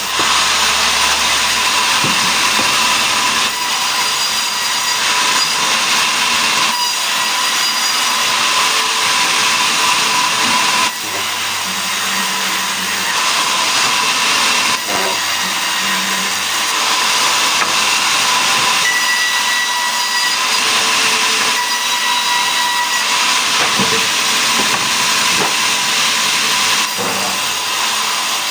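Sawmill machine sawing mahogany logs into boards: a steady, loud run of sawing noise with a constant whine.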